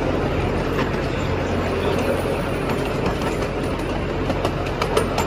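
Open-car tourist train running along its track, heard from aboard: a steady rumble and hum of the train in motion, with a few sharp clicks from the wheels and cars near the end.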